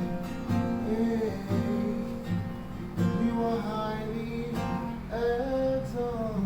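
Acoustic guitar strummed in chords, with a voice singing a melodic line over it in the second half.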